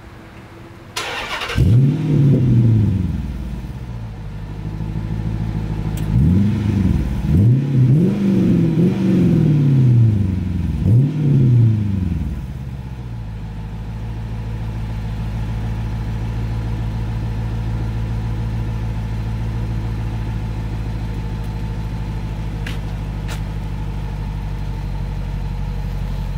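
Chrysler 300C engine heard at the exhaust tips through aftermarket Magnaflow mufflers: it starts with a sudden catch about a second in and flares up, is then blipped about five times in quick throttle revs, and settles into a steady idle from about halfway through.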